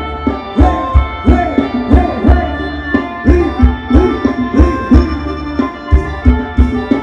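Live Thai ramwong band music: a steady drum beat under sustained reed tones from a khaen.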